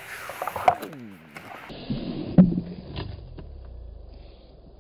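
Small RC airplane's electric motor and propeller whine, falling steadily in pitch for about a second and a half. It is followed by a sharp thump about halfway through, then a few lighter clicks.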